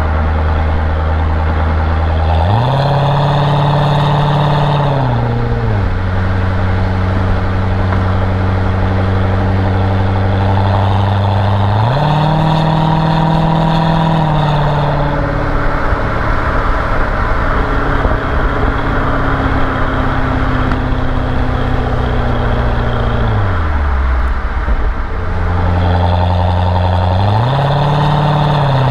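C6 Corvette's V8 engine running, revved up three times, each time quickly rising in pitch, holding steady revs for a few seconds, then dropping back.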